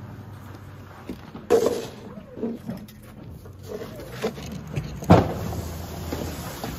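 A plow truck's engine running steadily, with several sharp knocks and scrapes over it, the loudest about a second and a half in and again about five seconds in.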